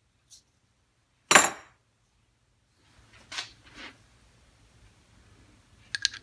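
Small metal parts being handled on a workbench: one sharp metallic clink about a second in, some brief handling and scraping, then two quick clinks near the end.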